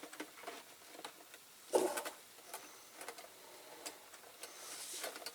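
Light scattered clicks and knocks from small die-cast metal parts being handled at a caustic soda stripping pot, with one louder knock just under two seconds in and a faint hiss near the end.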